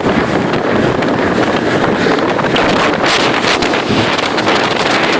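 Steady wind buffeting the microphone aboard a moving motorboat, with the boat's running noise underneath.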